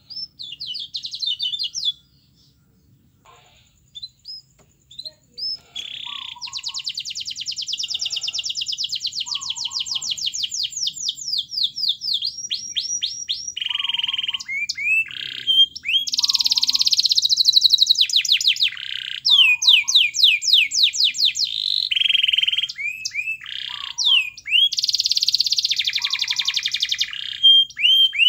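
Domestic canary singing: a short trill, a near-quiet pause of a few seconds broken by a few single notes, then from about six seconds in a long continuous song of fast rolling trills and quick sweeping notes.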